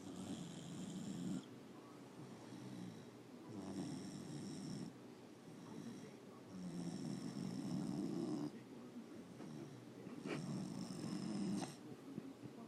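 Dog snoring in its sleep: four long, rasping snores about three seconds apart, each carrying a thin high whistle.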